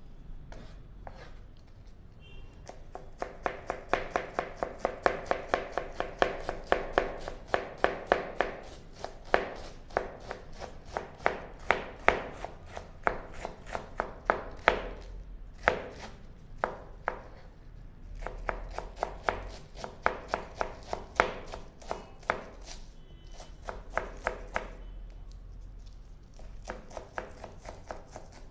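Chef's knife chopping and shredding cabbage on a plastic cutting board: a long run of quick, even knife strikes at about three a second. It starts about three seconds in, breaks off briefly past the middle, and thins out near the end.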